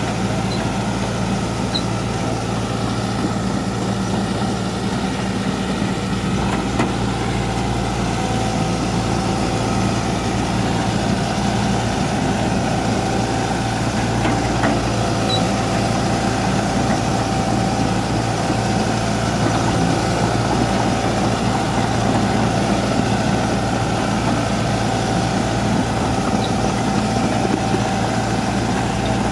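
Hitachi hydraulic crawler excavator's diesel engine running steadily as the machine travels on its tracks over wet ground. A higher steady whine joins the engine about eight seconds in.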